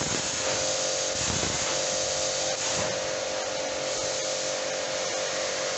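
StarQ ST W4 Pro electric pressure washer running under load, a steady motor hum with the hiss of the water jet from the spray gun.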